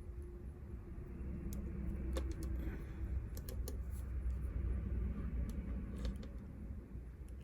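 Scattered small clicks and ticks of jewelry pliers and a metal jump ring being handled, irregularly spaced, over a low steady hum.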